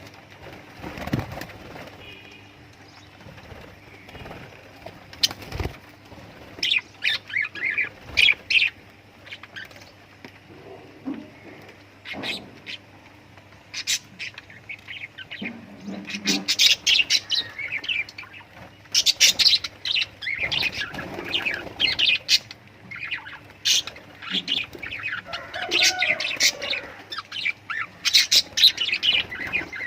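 Lovebirds chirping in short, high calls, scattered at first and much busier from about halfway on.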